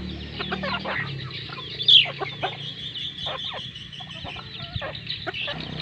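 Brugo hens, red junglefowl crosses, clucking in short, scattered notes as they peck at feed, with one louder, sharper call that falls in pitch about two seconds in.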